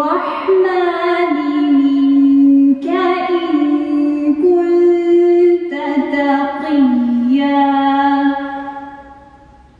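A woman's solo voice chanting a Qur'an recitation in Arabic: long held melodic notes with ornamented turns between them. The phrase trails off and fades about nine seconds in.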